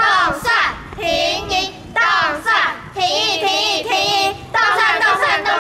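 A small group of children chanting a campaign cheer together in a loud, sing-song unison, in several short phrases with brief pauses between them.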